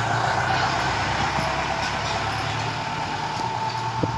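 Jeep engine running steadily as the jeep drives slowly away, the sound easing off gradually. A single short knock about four seconds in.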